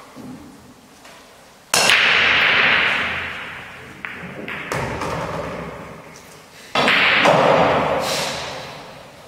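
Pool break shot: about two seconds in, the cue ball cracks into the racked balls, which clatter and roll across the table, dying away over about two seconds. A few single ball clicks follow, then a second loud burst of balls clattering starts about seven seconds in and fades the same way.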